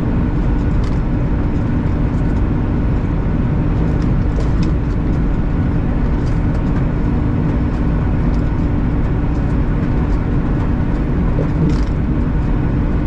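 Steady drone of a semi-truck's diesel engine and tyre and road noise, heard from inside the cab while driving at highway speed.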